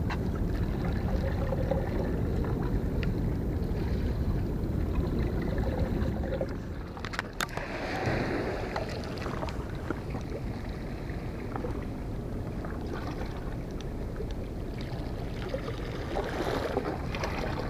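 Steady low rumble of wind on the microphone with water washing against a concrete seawall, and one sharp click about seven seconds in.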